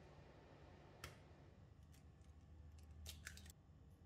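Near silence with a few faint clicks of a metal spoon touching a glass bowl as egg yolks are scooped in: one about a second in and two or three close together around three seconds in.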